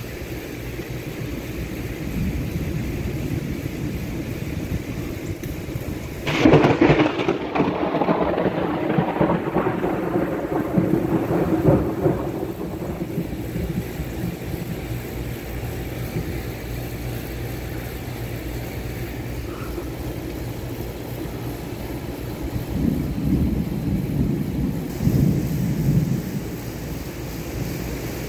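Thunder during a severe thunderstorm: a sharp clap about six seconds in that rolls on and dies away over several seconds, then lower rumbles near the end, all over steady rain.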